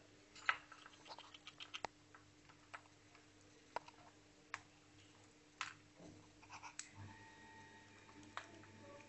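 Faint, irregular sharp clicks of sunflower seed husks being cracked open by a squirrel and a prairie dog as they eat. A quick run of clicks comes in the first two seconds, then single clicks about a second apart.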